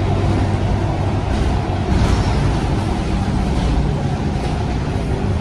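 Scania K230UB city bus heard from inside the cabin while under way: a steady low engine drone with road and tyre noise, the engine note briefly changing about two seconds in.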